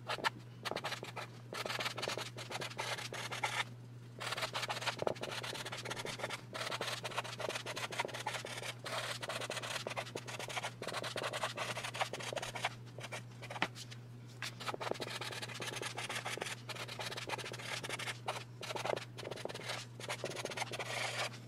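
Marker tip scratching across card stock as a note is handwritten, in short strokes with brief pauses between them, over a faint steady low hum.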